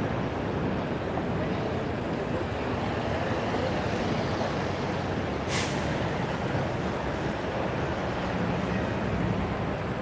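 Busy city street traffic: a steady wash of engine and tyre noise, with a brief sharp hiss about halfway through.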